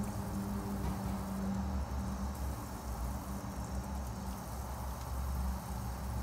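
Kitchen faucet running, water splashing into a stainless steel sink as a hair bundle is rinsed and wrung under the stream, with a low steady hum underneath.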